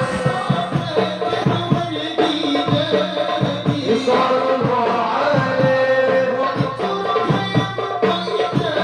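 Sholawat devotional singing by voices over a fast, steady beat of hand drums.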